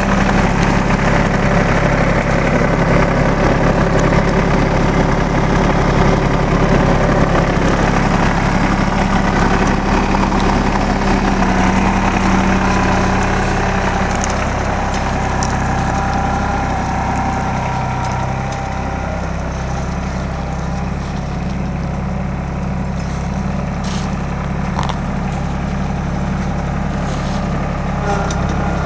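New Holland TC33D compact tractor's three-cylinder diesel engine running steadily. About halfway through it settles to a slightly lower, quieter speed.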